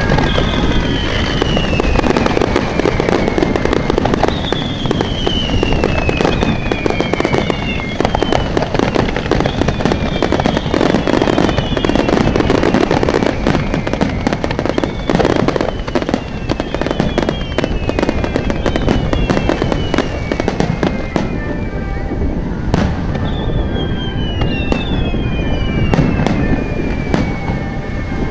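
Fireworks display: a continuous barrage of bangs and crackling from bursting shells, with whistles that fall in pitch over a couple of seconds, heard several times through the barrage.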